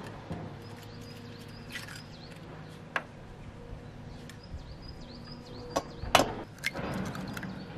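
Eggs tapped and cracked against the rim of an enamel bowl: a few sharp clicks, the loudest about six seconds in, over faint birdsong.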